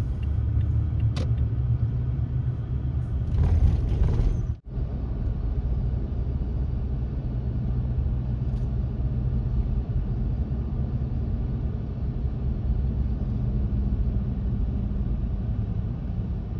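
Steady low road and engine rumble of a car heard from inside the cabin while driving. A brief louder rush comes about three and a half seconds in, followed by a momentary dropout in the sound.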